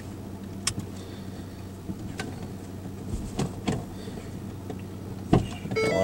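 A steady low mechanical hum with scattered short clicks and knocks. A short pitched electronic tone begins near the end.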